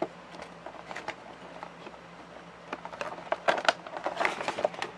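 Action-figure packaging being handled and opened: scattered clicks and taps, then a quicker run of crinkling, crackling clicks from about three seconds in until near the end.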